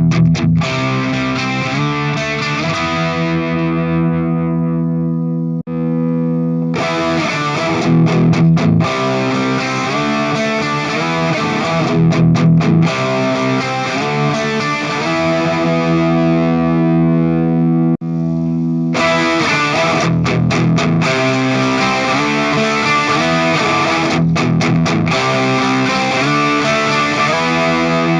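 Distorted electric guitar played through an M-VAVE Tank Mini amp-modeler pedal, ringing chords and riffs. The sound cuts out briefly twice, about six and eighteen seconds in.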